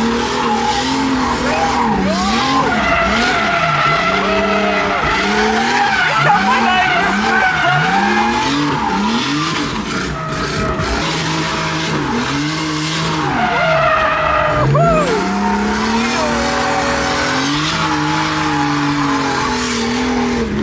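Turbocharged drift car's engine revving hard, its pitch climbing and dropping again and again (about once a second at first, then in longer sweeps), over continuous tyre squeal and skidding as the car drifts.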